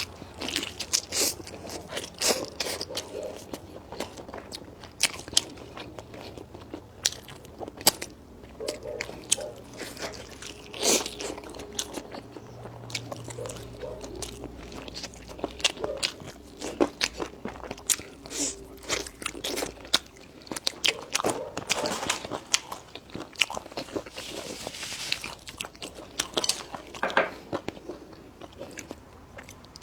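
A person eating close to the microphone: biting and chewing, with irregular crisp crunches and clicks throughout.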